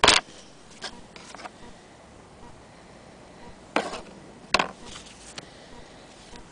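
Handling noise: a sharp knock right at the start, then a few softer knocks and rubs, with two more knocks close together about four seconds in.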